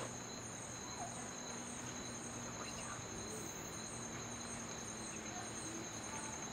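Insect chorus: a steady high-pitched drone with a pulsing call above it, about two pulses a second.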